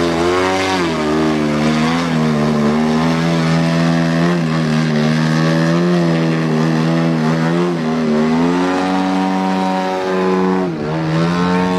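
Radio-controlled aerobatic plane's motor and propeller running loud and steady while the plane hovers on its propeller. The pitch rises and falls with the throttle, and near the end it dips sharply and climbs back as the plane powers away.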